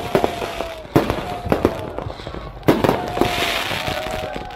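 Fireworks going off in quick succession: many sharp bangs and pops, with several long whistling tones that fall slightly in pitch. A crackling hiss comes about three seconds in.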